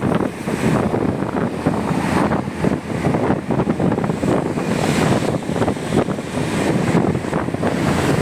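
Wind rushing and buffeting against the microphone of a moving motorcycle, a loud, gusting roar of noise.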